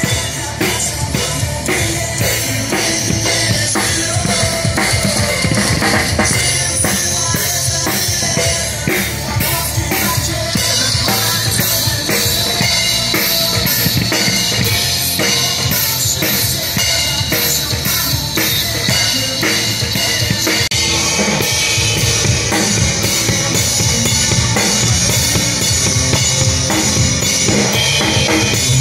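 Live acoustic drum kit being played, a steady groove on bass drum, snare and cymbals, with the cymbals growing louder about ten seconds in.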